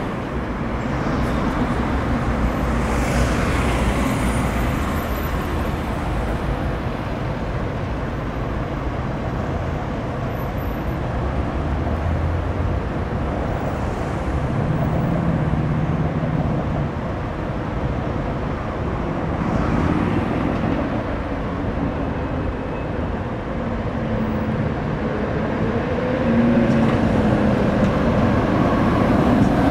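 Two-car Tatra T3SUCS tram set running along the street rails, its rumble growing louder near the end as it passes close, over steady city road traffic.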